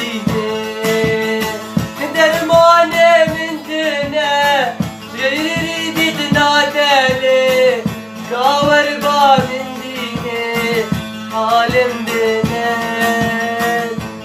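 Middle Eastern folk music: a plucked string instrument keeps a steady strummed pulse under a sung melody that bends and slides between held notes.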